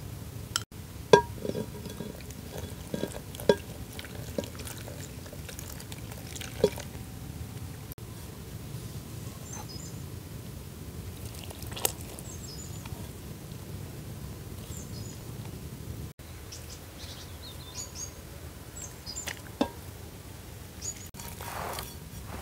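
Water poured from a jug into flour in a ceramic bowl while a hand mixes it into dough. Several sharp clinks, a spoon striking the bowl, come in the first seven seconds.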